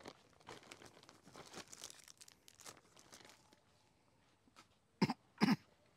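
Plastic carrier bag rustling and crinkling as it is handled and set down on a wooden table. Near the end come two short, louder thuds about half a second apart.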